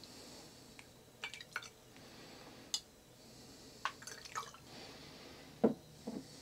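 White wine vinegar poured from a bottle onto a tablespoon and dripping into a glass jar, with small clinks of spoon and bottle against the glass, then two knocks near the end as the bottle is set down.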